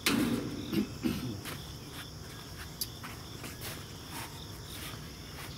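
Cordless drill briefly driving a screw into the sheet-metal grill cabinet, a short loud burst at the start, followed by scattered light clicks and taps on the metal. Insects chirp steadily in the background.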